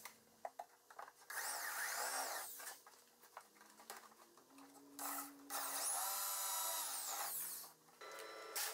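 Corded electric drill boring dowel holes through a thin HDF template into a cabinet carcass, in two runs, each rising in pitch as the motor spins up and falling as it winds down.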